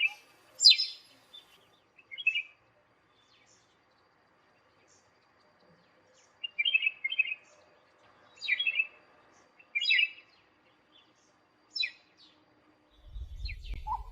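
Black-throated redstart calling: short, sharp high calls, singly or in quick pairs, every second or two. A low rumble comes in near the end.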